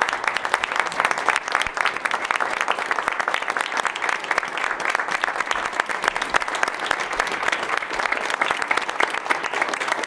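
A roomful of people clapping in sustained applause, many rapid overlapping claps that hold steady throughout.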